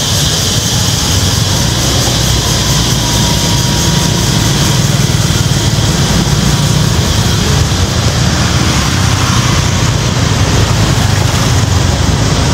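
Steady road noise from riding a motorbike: the engine running, with wind buffeting the microphone as a dense, fluttering rumble, amid other motorbike traffic.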